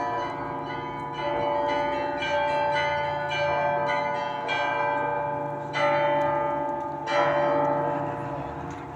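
Russian Orthodox cathedral bells ringing a peal: smaller bells struck in quick succession over the steady hum of a large bell, with stronger strikes about six and seven seconds in, dying away near the end.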